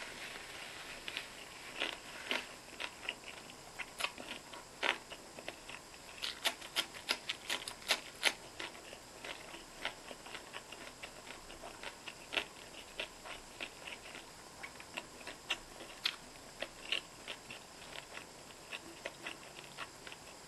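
Close-miked chewing with wet mouth clicks, coming in quick irregular runs that are busiest about six to eight seconds in.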